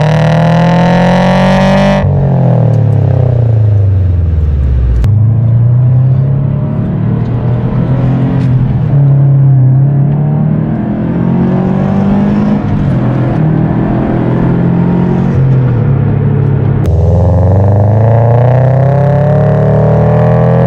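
Subaru BRZ's flat-four boxer engine through a JDL unequal-length header and Invidia N1 catback exhaust, accelerating hard. It rises in pitch for the first couple of seconds, drops away, runs at a steadier cruise, then climbs again near the end.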